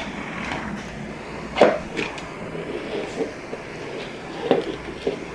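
A few scattered knocks and scrapes of a dish being pushed across a hardwood floor, the sharpest knock about one and a half seconds in.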